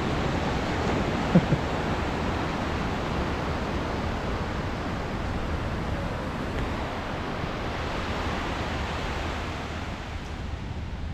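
Steady rush of ocean surf breaking on a sandy beach, easing slightly near the end. A brief sharp sound about a second and a half in.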